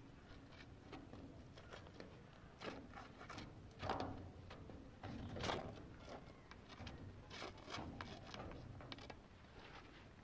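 Faint scattered scrapes and taps, with two louder scraping sounds about four and five and a half seconds in.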